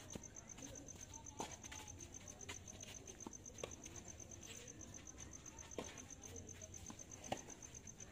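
Tennis rally: short sharp pops of the ball coming off racket strings and bouncing on the court, about half a dozen spaced a second or two apart, over a steady pulsing insect trill.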